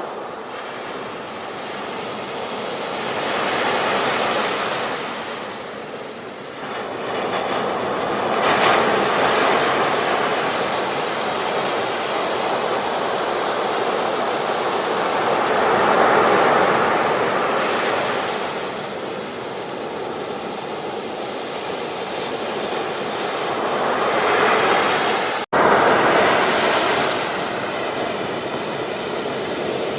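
Ocean surf breaking on a beach, swelling and washing in every few seconds. The sound cuts out for an instant about 25 seconds in.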